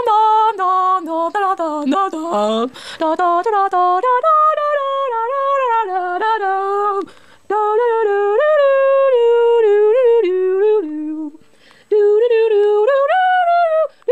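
A person humming a tune, moving in clear held steps from note to note, with two brief pauses, a little past halfway and near the end.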